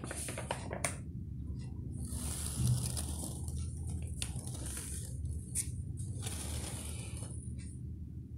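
Handling noise: paper rustling and a few light clicks as a painting on stiff paper is held up and the phone is moved over it, over a low steady hum.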